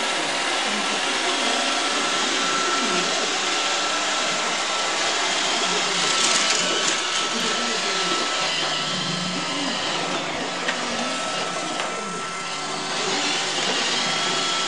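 iRobot Roomba 555 robot vacuum running: a steady whir with a thin high whine, briefly brighter about six seconds in and dipping slightly about twelve seconds in.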